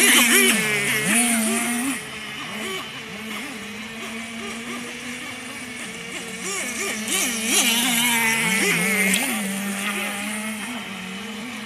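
Radio-controlled model speedboat running on a pond: a steady motor whine whose pitch dips and rises as the throttle changes. It gets louder, with a hiss of water, as the boat passes close at the start and again from about seven to nine seconds in.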